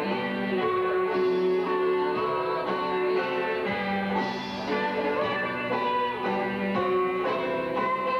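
Karaoke backing track: recorded pop music with guitar, playing steadily.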